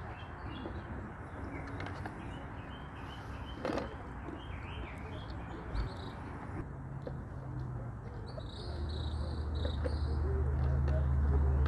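Small birds chirping in short calls, with a low steady engine hum that comes in past the middle and grows louder toward the end.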